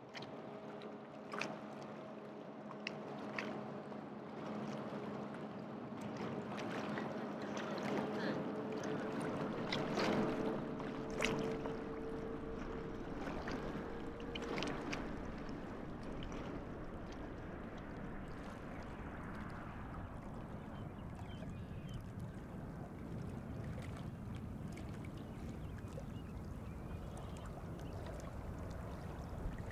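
Airbus A380 jet engines heard from across the water: a steady whine with several held tones for the first half, and a low rumble that builds from about a third of the way in and then holds. Small waves splash and lap against the shore.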